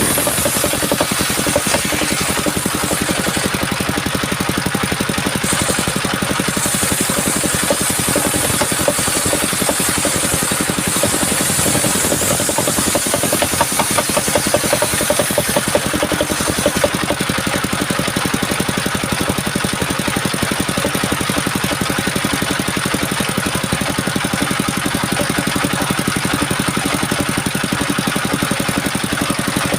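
Engine of a mobile sawmill running steadily with a fast, even pulsing beat.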